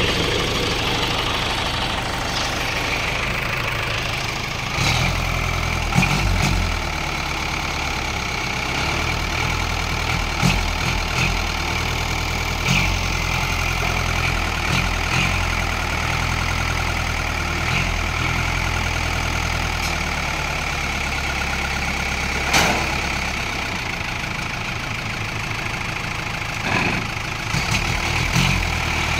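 Isuzu 4BB1 four-cylinder diesel engine idling steadily in the truck, with a few sharp clicks now and then.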